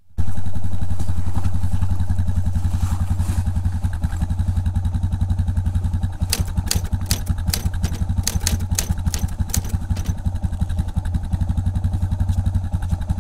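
Motorcycle engine idling with a steady, fast low pulse. A run of sharp clicks comes between about six and ten seconds in.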